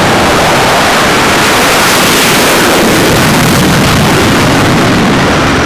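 F/A-18F Super Hornet twin turbofan engines at full thrust for a carrier catapult launch, a loud, steady roar.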